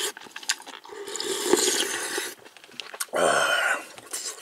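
Yukgaejang broth being spooned and slurped: a longer wet rush about a second in, then a shorter, louder one about three seconds in.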